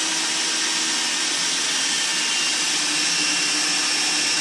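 Electric hand drill running steadily with a constant motor whine as the bit bores into wood.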